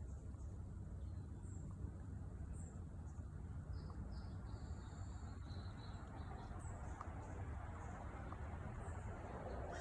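Small birds chirping faintly now and then over a low steady rumble.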